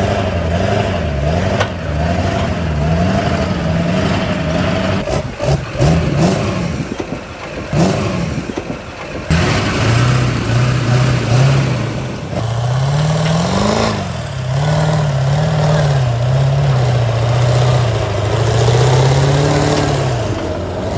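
Mud truck engine running and being revved up and down over and over, with a stretch of sharp knocks and clatter about five to nine seconds in. The truck is driving on a broken front axle.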